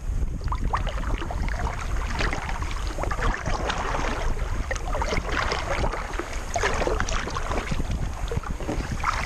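Water splashing and dripping in irregular short bursts around a sea kayak as it is paddled. Under it runs a steady low wind rumble on the microphone.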